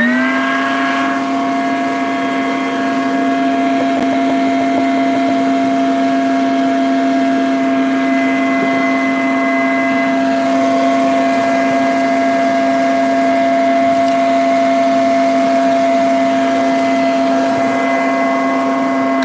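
Makita 18V brushless 2-gallon wet/dry vac with dust extractor running on its speed setting 2: a rising whine as the motor spins up at the start, then a steady whine.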